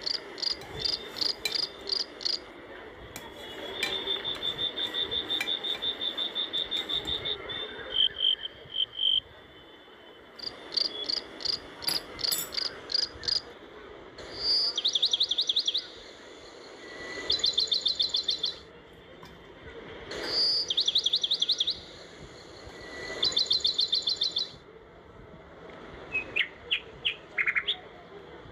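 High-pitched animal chirping and trilling in short repeated phrases; the later trills come about every three seconds.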